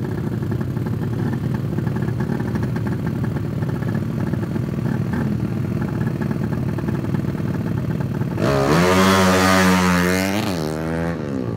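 Tuned four-stroke underbone race motorcycle engine running steadily at the start line. About eight seconds in it revs up loudly as the bike pulls away, the pitch dipping briefly near the end.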